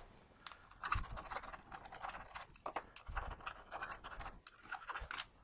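Small rat-tail file scraping in short, irregular strokes, cleaning the burrs out of a freshly drilled hole.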